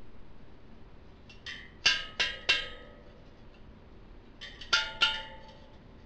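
Bicycle wheel spokes pinging with short ringing tones as they are handled for a tension check on a hub-motor wheel: three sharp pings about two seconds in, then two more near five seconds.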